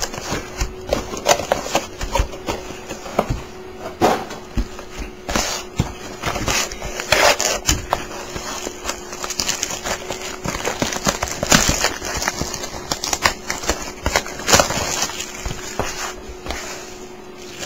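Hands crinkling, tearing and handling the plastic wrap and cardboard of a trading-card mini-box, with irregular crackles, rustles and small taps as it is opened.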